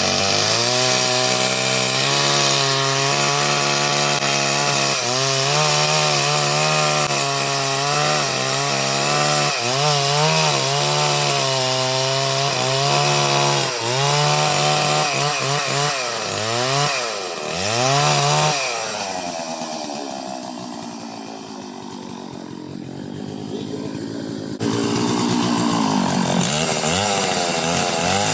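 Two-stroke chainsaw run at high revs and cutting through a coconut, its pitch dipping and rising as it bites. After about 18 seconds it drops back to idle, then is throttled up again sharply about 25 seconds in.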